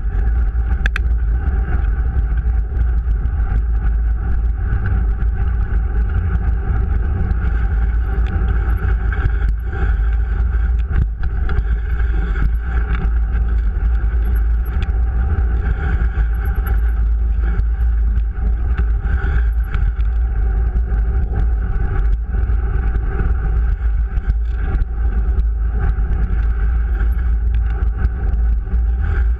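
Steady low rumble of wind and vibration picked up by a camera riding on a fat bike over a snow-packed trail.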